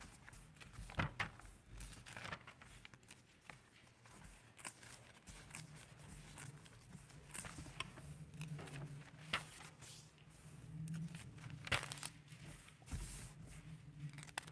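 Thin Bible pages rustling and crinkling as they are leafed through, faint, with scattered soft clicks and taps.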